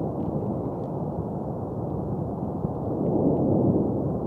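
Lava fountain of Mount Etna in paroxysmal eruption: a steady, low, rushing noise that swells a little about three seconds in.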